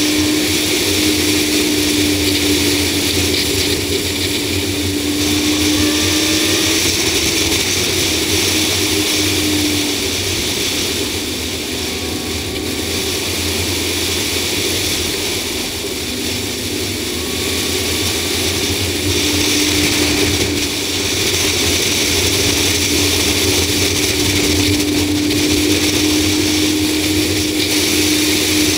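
Ford Explorer V8 cruising on the road, heard through an outside-mounted action camera: steady wind and road noise over a low engine hum, with a faint tone that drifts slowly up and down in pitch as the speed changes.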